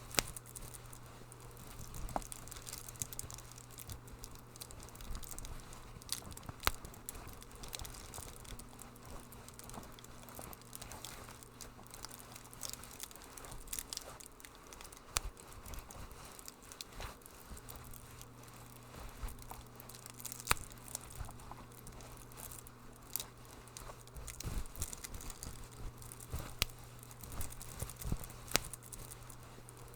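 Wood fire crackling in a fireplace: irregular sharp pops and snaps over a soft steady hiss, with a low steady hum underneath.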